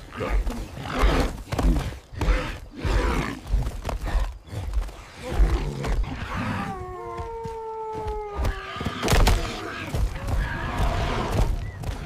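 Early humans' ape-like grunts and shouts, with thuds. About halfway through comes a long cry of about two seconds that falls slightly in pitch, then a sharp hit and more grunting.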